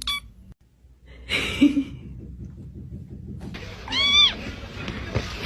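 A cat meows once about four seconds in, a short call that rises and falls in pitch, over background noise. A short noisy burst comes about a second earlier.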